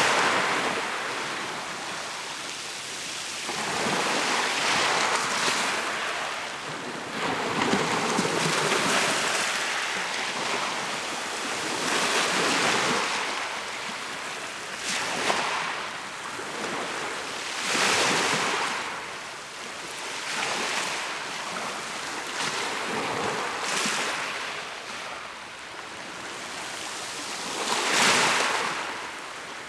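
Mediterranean sea waves washing in and out, the surf swelling to a peak and falling back every three to five seconds.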